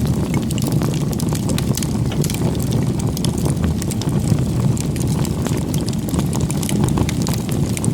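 Wood campfire burning, with frequent small crackles and pops over a steady low rumble.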